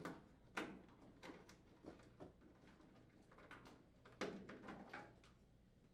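Faint, scattered clicks and rustles of a wire bundle and its plastic connector being handled and fed through a hole in a sheet-metal panel.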